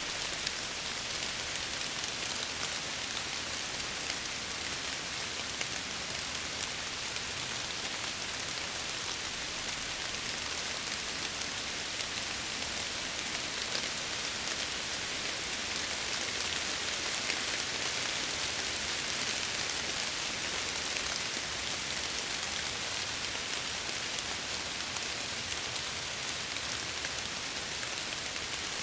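Steady rain falling against a window, an even hiss with faint scattered drop ticks, swelling a little in the middle.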